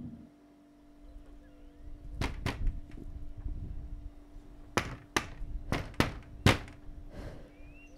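A pair of sharp knocks, then a run of five more at uneven spacing, the last one the loudest, over a faint steady hum.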